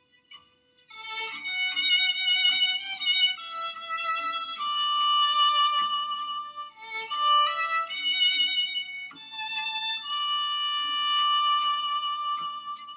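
Violin music: a melody of long held notes, starting about a second in.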